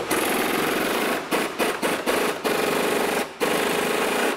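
Pneumatic impact wrench hammering on the front shock absorber top mount nut of a 986 Porsche Boxster S to undo it. It rattles loudly in long bursts broken by a few short pauses.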